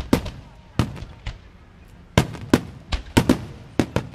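Fireworks and firecrackers going off: an irregular run of about a dozen sharp bangs in four seconds, the loudest clustered between about two and four seconds in.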